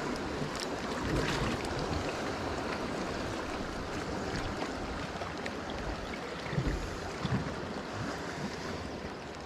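Sea surf washing among coastal rocks, a steady rushing, with two low bumps about seven seconds in.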